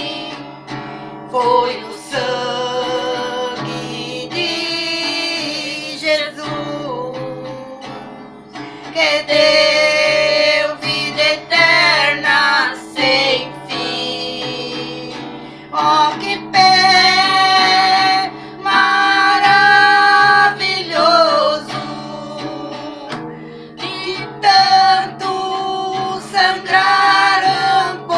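Amateur singers, women's voices, singing a Portuguese gospel hymn in phrases, accompanied by a strummed acoustic guitar.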